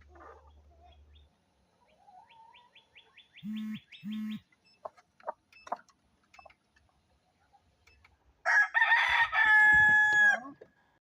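Chickens clucking softly and sporadically, then one loud drawn-out chicken call about two seconds long near the end.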